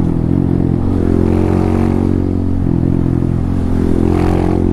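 Honda Grom's 125 cc single-cylinder four-stroke engine running under way at a fairly steady pitch, with slight rises and dips in revs.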